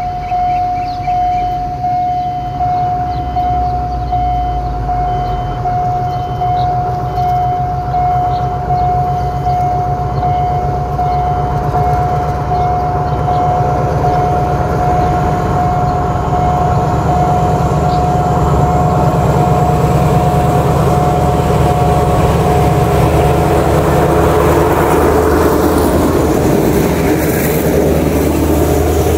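A level-crossing warning alarm sounds a steady tone while an SRT Alstom diesel-electric locomotive with an MTU engine, number 4146, approaches at low speed with a passenger train. The diesel rumble grows louder from about halfway through, and near the end the locomotive and its carriages pass close by as the train slows to stop.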